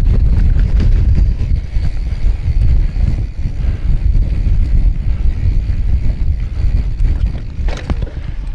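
Wind buffeting the microphone over the rumble of a mountain bike riding a trail, with a short sharp clatter near the end.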